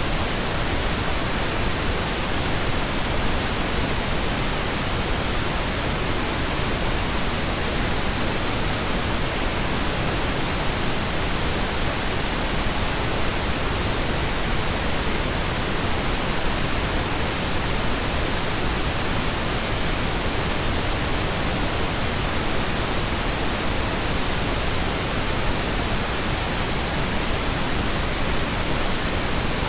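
Steady pink noise, an even unbroken hiss across all pitches with no chimes or ticks.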